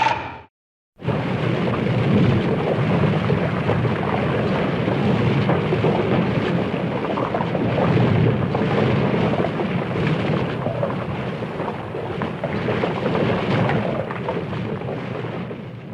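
Sound effect for the kaiju Hedorah in its Landing Stage form: a long, dense, rumbling noise with no clear pitch. It starts about a second in, holds steady and fades out at the end.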